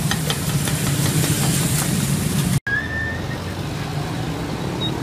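Street ambience carried by a steady low engine hum, with scattered light clicks. It cuts out suddenly about two and a half seconds in. A quieter background hum follows, with a brief high chirp just after the break.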